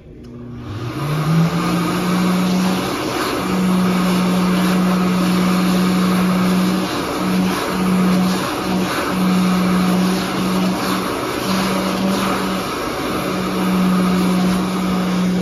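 Bradley Mediclinics Speedflow stainless-steel hand dryer switching on: its motor spins up with a hum rising in pitch over about a second, then runs steadily with a loud rush of air.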